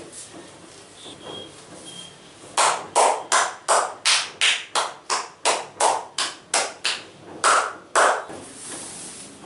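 Rapid, even series of about fifteen sharp hand slaps on the head during an oil head massage, roughly three a second, stopping shortly before the end.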